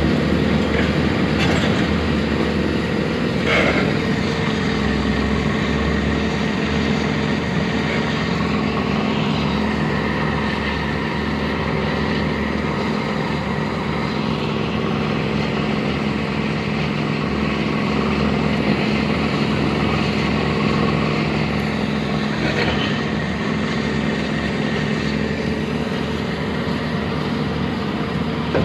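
Heavy vehicle engine running steadily, a continuous low even drone.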